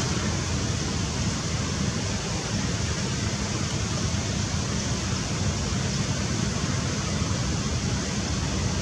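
Steady rushing background noise with a low rumble, even throughout.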